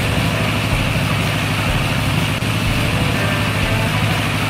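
Dump truck engine running steadily at low speed under a steady rushing hiss of air from large drying fans.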